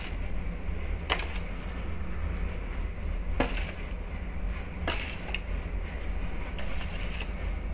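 A wooden spatula knocks and scrapes against a pan of sautéing frozen bitter gourd, onion and chillies: about six sharp clicks spread irregularly, the loudest about three and a half seconds in. Underneath are a steady low hum and an even hiss.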